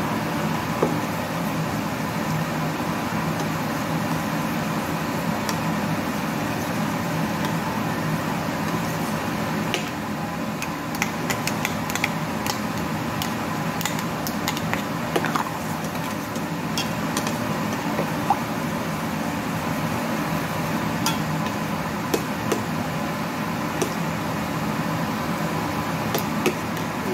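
Steady hum of a running kitchen appliance, with light metallic clicks and taps from about ten seconds in as a utensil and cup are worked against a stainless steel mixing bowl.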